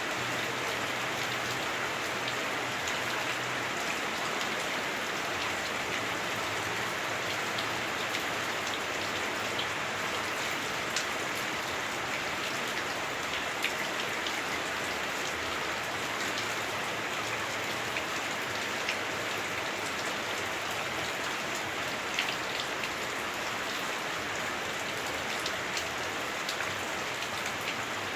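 Heavy rain falling on a house roof, heard from inside: a steady, dense hiss with a few sharper drop strikes now and then.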